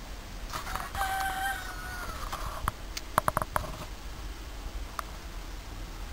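Silkie cockerel crowing once: a single call of about two seconds that holds its pitch and then drops at the end. A quick run of sharp clicks follows.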